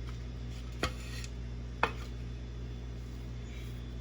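Two sharp clinks of kitchenware, about a second apart, the second louder, over a steady low hum.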